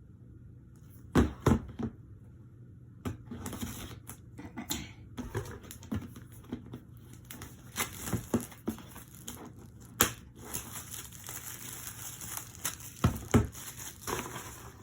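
An eyeshadow palette's packaging being opened by hand: crinkling and tearing with scattered clicks and taps, and a few louder knocks about a second in, about two thirds through and near the end.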